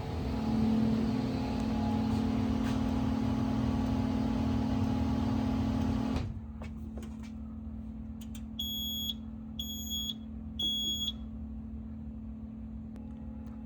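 Fire alarm control panel giving three short high-pitched beeps about a second apart as the system is reset to normal after a test. Before them a steady hum with hiss cuts off suddenly about six seconds in.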